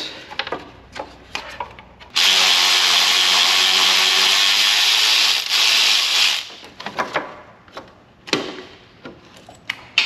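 Cordless ratchet running steadily for about four seconds with a motor whine, spinning out a fastener that has just been broken loose, followed by a few light clicks and knocks of tool and part handling.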